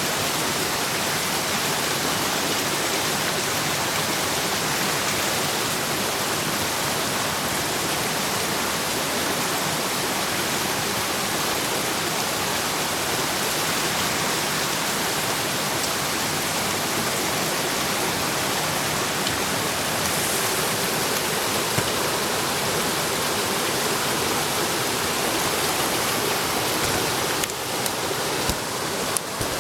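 Steady rushing noise like running water, with a few short clicks near the end.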